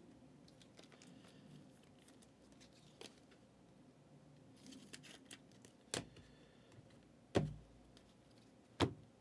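Trading cards and a clear plastic card sleeve being handled: faint rustling and sliding, with a few sharp taps and clicks in the second half, three of them louder.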